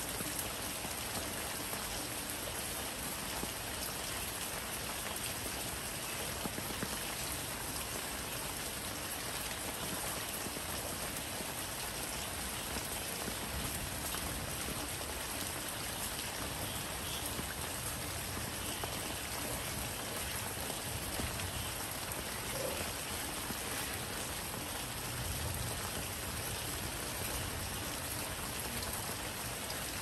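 Steady rain falling, an even wash of raindrops on surfaces that keeps up without let-up.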